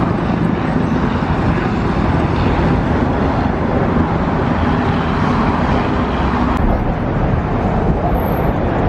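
Steady road traffic noise from cars on the bridge roadway beside and below the walkway: an even, unbroken wash of tyre and engine sound.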